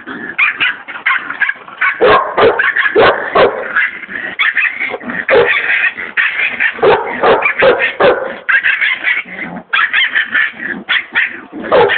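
Pit bull puppy barking and yipping in rapid, continuous short calls while being held.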